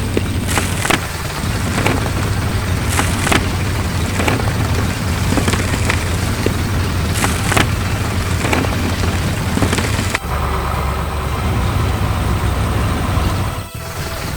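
Vehicle engine running steadily with a low rumble, broken by irregular short knocks. About ten seconds in it cuts to a deeper engine drone with a faint steady whine over it.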